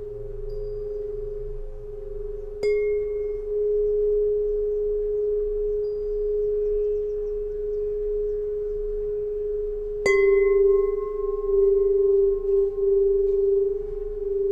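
Solfeggio tuning pipes, metal tubes struck twice, about two and a half seconds in and again about ten seconds in. Each strike is a sharp ping followed by a long, steady ringing tone with fainter higher overtones; the second strike is louder.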